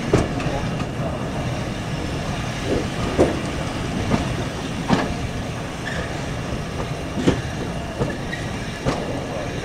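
Diesel-hauled heritage passenger train running, heard from a coach window: a steady rumble of the coaches with irregular sharp wheel knocks over the rail joints, about seven in all.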